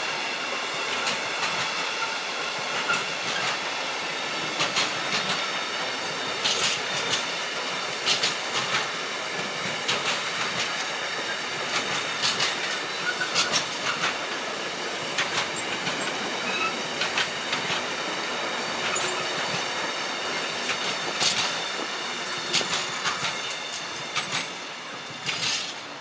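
Freight train of container flat wagons carrying tank containers running past at speed: a steady rumble of wheels on rail with repeated clicks as wheels cross rail joints, and a faint high wheel whine. Near the end the sound falls away as the last wagon goes by.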